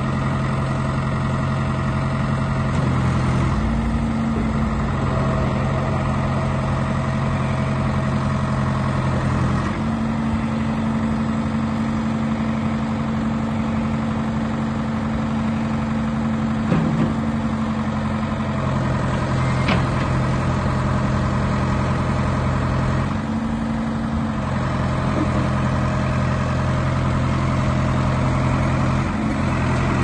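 Ford 655D backhoe loader's diesel engine running steadily while the backhoe arm is worked hydraulically up into its folded position. The engine note steps up and down in pitch several times.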